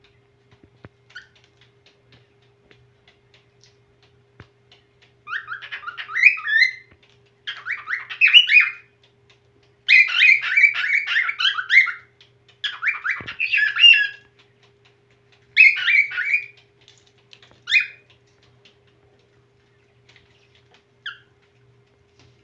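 Whiteface cockatiel singing: about six bouts of quick, warbling whistled phrases, starting about five seconds in, then a single short note near the end.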